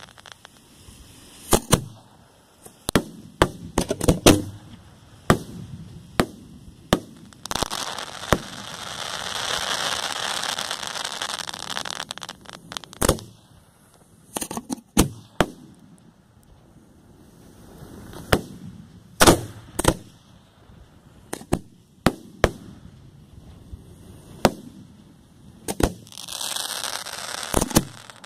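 Display fireworks going off: many sharp bangs at irregular intervals, some in quick clusters, with stretches of hiss around ten seconds in and again near the end.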